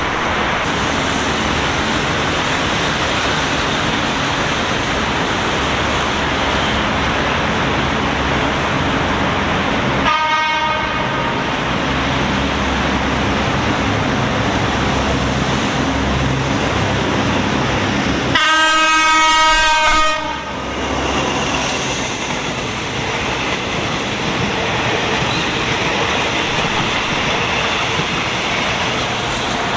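Locomotive horn of a diesel-hauled passenger train, rapid train no. 112, sounding twice as the train approaches: a short blast about a third of the way in, then a louder, longer blast of about two seconds just past halfway. Underneath is a steady rumble of the train on the track, with carriages passing near the end.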